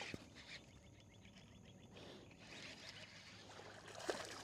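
Faint rapid ticking of a spinning reel being wound in over quiet outdoor background, with a light click near the end.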